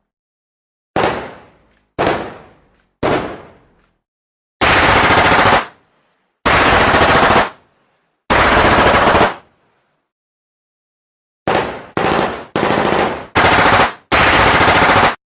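Gunfire sound effects: three single shots about a second apart, each trailing off in an echo, then three bursts of automatic fire about a second long each. After a short silence comes a quick run of short automatic bursts near the end, each cutting off sharply.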